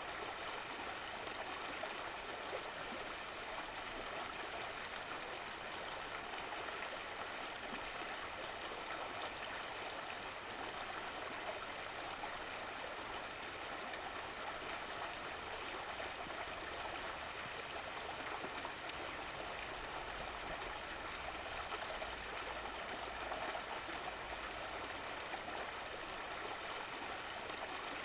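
Stream of running water flowing and gurgling steadily.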